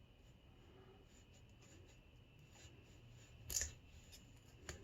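Faint metal scraping and ticking of a lock pick and tension wrench working the pins of a Hurd padlock, with one sharper click about three and a half seconds in and a small tick near the end.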